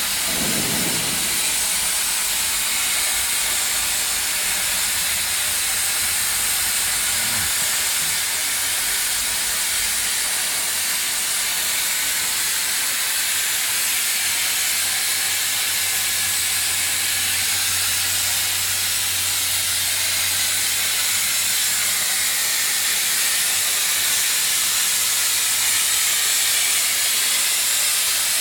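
CNC plasma cutting torch hissing steadily as it cuts through steel plate.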